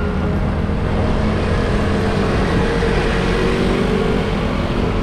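Motor scooters running in city traffic close alongside a moving rider, under a steady heavy rumble of wind and road noise.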